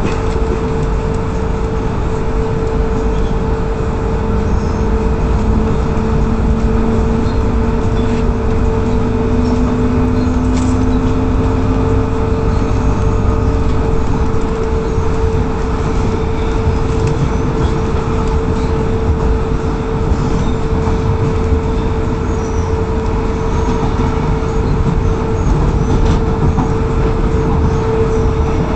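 Electric suburban train heard from inside the carriage while running at speed: a steady rumble of wheels on the rails with a constant hum, and a whine that slowly rises in pitch during the first half.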